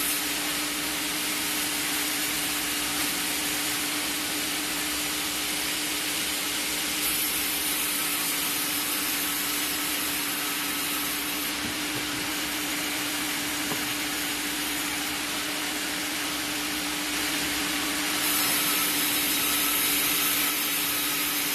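Vertical log band saw with a 22 kW main motor running steadily, its blade sawing through a log on the carriage: a constant hiss of cutting over a steady low machine hum, swelling a little near the end.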